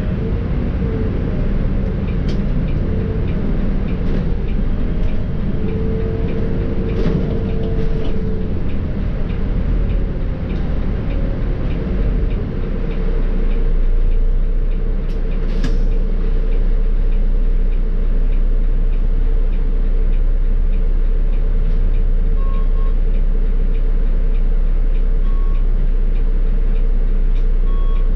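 Volvo B7R bus's diesel engine and ZF EcoLife automatic gearbox running while under way, a steady low rumble with a faint, evenly repeating light ticking. The rumble grows louder and deeper about halfway through.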